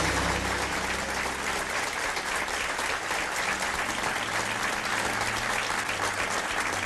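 A small group of people applauding, many hands clapping steadily throughout.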